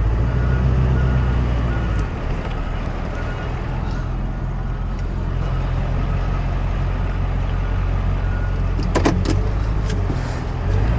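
Truck engine running as the truck is driven, its low note easing off about two seconds in. A brief knock sounds near the end.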